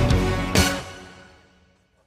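Background music ending on a final hit about half a second in, then fading out to near silence.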